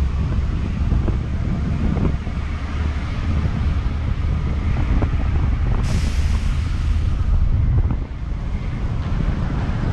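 Wind buffeting the microphone over the low rumble of a tour bus's engine and road noise. A hiss starts sharply about six seconds in and fades over a second or so.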